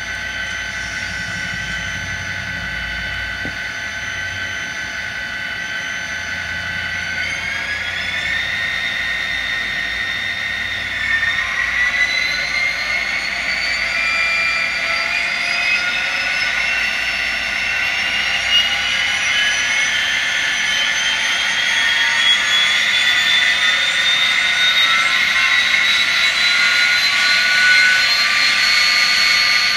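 Recorded diesel engine sound from the sound decoder in an N scale EMD SD40-2 model locomotive, played through its tiny speaker. The engine and turbo whine rise in pitch as it notches up: one step about a quarter of the way in, another around a third of the way in, then a slow climb.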